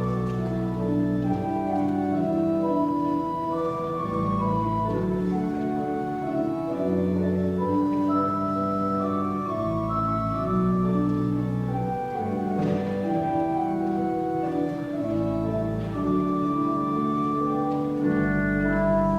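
Church organ playing slow, held chords that change every second or two over deep bass notes.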